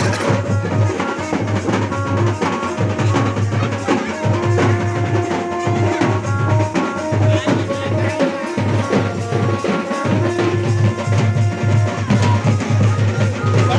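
Loud dance music with a steady, heavy drum-and-bass beat under held melody notes.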